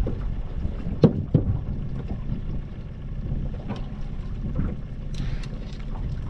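Steady low wind rumble and water around a small aluminium boat while a crab pot rope is hauled in hand over hand, with two sharp knocks about a second in and a few faint clicks later.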